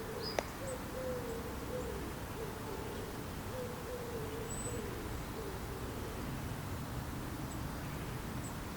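A bird's low cooing or hooting call, a phrase of short repeated notes, several sliding down at the end, which stops about halfway through, over a steady outdoor hiss. A single sharp click comes just after the start.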